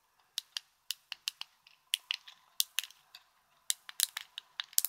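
Fidget Cube's push buttons being pressed repeatedly: a run of sharp plastic clicks, several a second at an uneven pace.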